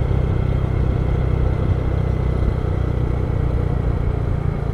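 A vehicle driving along at a steady speed, its engine and road noise a steady low drone.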